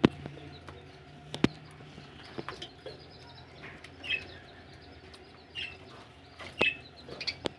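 Budgerigars giving a few short chirps, with sharp clicks and taps among them and a low steady hum underneath.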